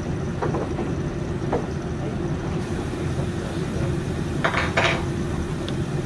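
Front-loading washing machines tumbling a wash: a steady low hum and churn of drum and motor, with a few short clinks and knocks as the load turns, the loudest pair about four and a half seconds in.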